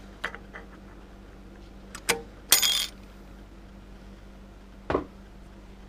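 Small metallic clicks and clinks of a steel snap ring being worked out of a Ford AOD forward clutch drum held down by a spring compressor. About two and a half seconds in there is a short ringing metallic scrape, and near the end a dull knock.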